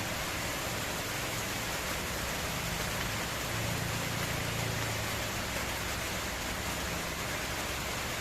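Egg frying in hot oil in a pan, sizzling steadily.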